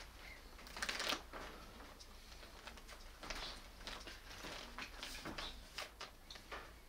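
Rustling paper and light knocks of books and magazines being handled and shifted on a stacked shelf, in short irregular bursts, the loudest about a second in.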